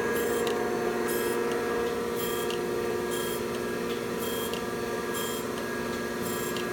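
Thompson 8x24 surface grinder running, with a steady hum from the motor and spindle and the hydraulic table traversing on continuous feed. A short high hiss recurs about once a second.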